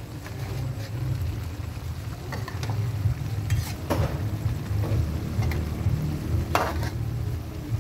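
Metal ladle stirring chopped duck in a frying wok, scraping against the pan with a few sharp strokes about four seconds in and again near six and a half seconds, over a steady low rumble.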